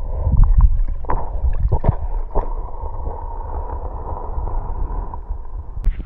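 Muffled gurgling and rushing of river water heard by a microphone held under the surface, with low rumble and a few knocks. Near the end there is a sharp click and the sound turns brighter as the microphone comes out of the water.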